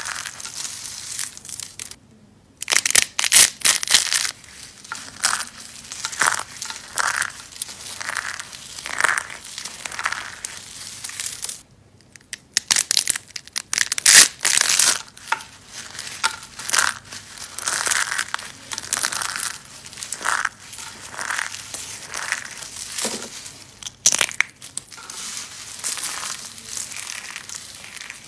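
Bars of soap being crushed, giving irregular, dense crunching and crumbling. The crunching breaks off into brief silences about two seconds in and again about twelve seconds in.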